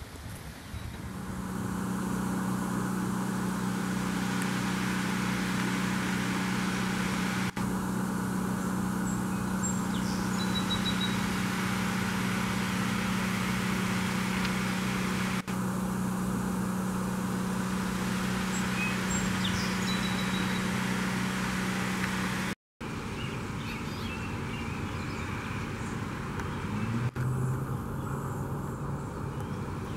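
A steady, even motor hum, like an engine running at a constant speed. It is broken by a brief dropout about two-thirds of the way through and is weaker afterwards.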